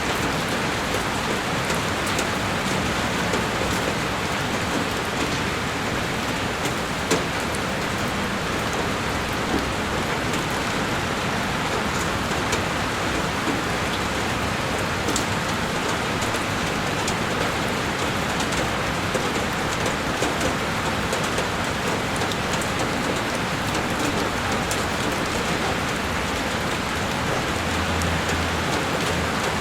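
Heavy rain falling on a window: a steady, dense rush with scattered sharp drop ticks, one louder tick about seven seconds in.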